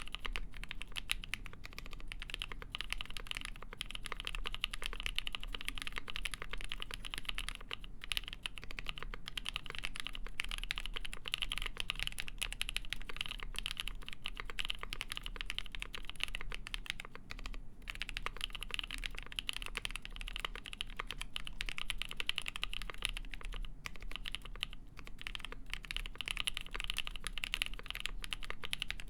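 Fast, continuous typing on a Polaris mechanical keyboard with NK Cream linear switches lubed with Krytox 205g0, mounted in a full polycarbonate plate under GMK Shoko keycaps. The keystrokes come in a dense, even stream, with a brief pause about seventeen seconds in.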